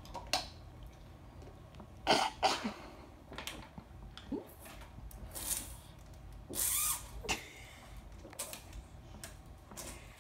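Plastic water bottles gripped in the teeth and tipped up to drink with no hands: a series of short, scattered noises of bottle handling, water and puffs of breath through the nose.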